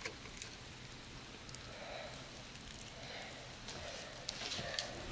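Faint wet squishing and dripping of cornstarch-and-water slime (oobleck) being worked by hand in a glass bowl, with scattered small clicks and patters.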